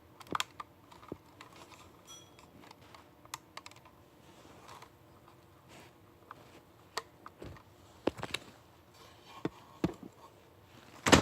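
Scattered, irregular light clicks and taps of plastic parts being handled as a battery lead's connector is plugged into a VEX Cortex microcontroller.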